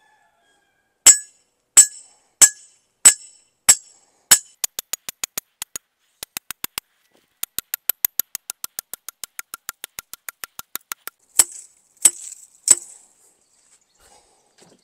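Hammer striking a metal electric-fence grounding rod to drive it into rocky ground, each blow a sharp metallic clink. There are six heavy blows about two-thirds of a second apart, then runs of quick light taps at about seven a second, then three more heavy blows near the end.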